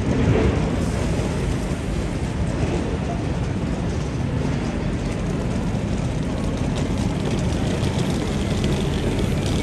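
Steady city street noise with a low rumble of vehicles, a little louder just at the start.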